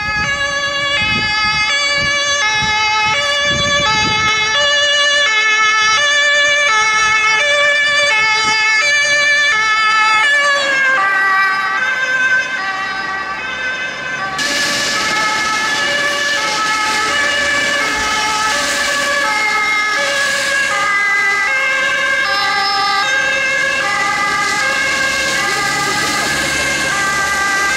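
German two-tone emergency-vehicle horn (Folgetonhorn) on a physician's response car, sounding its alternating high-low "tatü-tata" pattern continuously. About halfway through, a rushing traffic noise joins beneath it.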